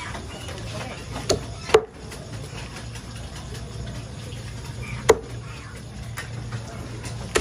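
Meat cleaver chopping raw chicken on a thick wooden chopping block: a few sharp, separate knocks, two close together about a second and a half in, another about five seconds in, and one at the end, over a steady low hum.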